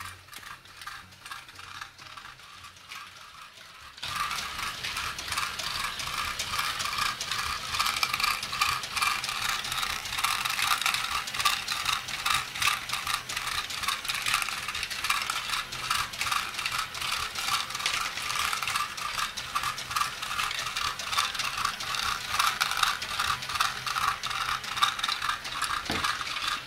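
Lego Technic Great Ball Contraption module running on one motor: plastic gears and mechanisms clicking while small balls rattle and clatter through them. It is quieter for the first few seconds, then becomes a dense, steady clatter about four seconds in.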